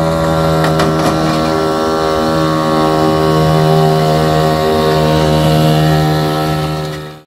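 Puch moped's small two-stroke engine running at steady high revs, holding an even pitch, then cutting off suddenly near the end.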